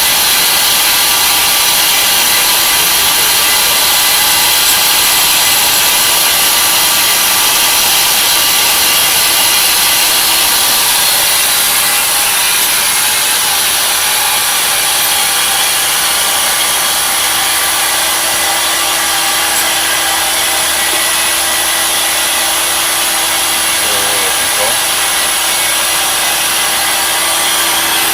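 Tree Journeyman 250 CNC milling machine running, its cutter machining aluminum: a steady, loud cutting noise with several high, steady whining tones over a hiss, easing slightly about halfway through.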